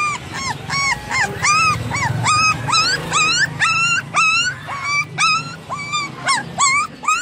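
Puppy whimpering: a quick run of short, high-pitched whines, about three a second, each rising and then dropping in pitch.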